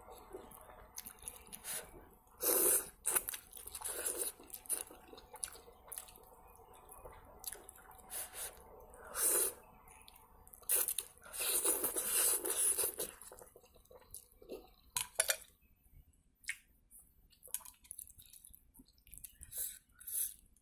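Close-miked eating of instant noodles: several loud, noisy slurps as mouthfuls of noodles are sucked up from chopsticks, the longest about 11 to 13 seconds in, with wet chewing and lip-smacking clicks between them and in the quieter last third.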